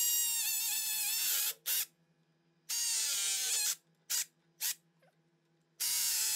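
Battery-powered surgical drill running in on-off bursts on a pin at the knee cutting block: a long run, a short blip, another run, two quick blips, then a run starting near the end. Its whine sags slightly in pitch during each run.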